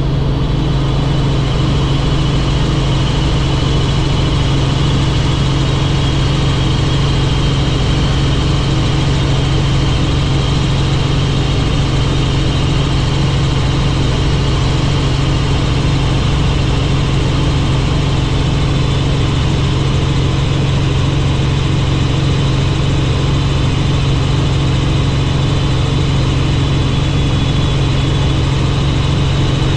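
Helicopter in flight: a steady, unchanging engine and rotor drone with a strong low hum and a fainter high whine above it.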